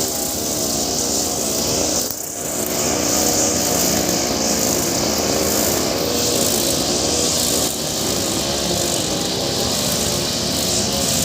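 Two-stroke brush cutter with a steel cable cutting line, running at high revs through grass. The engine's pitch wavers as the load changes, with a short dip about two seconds in.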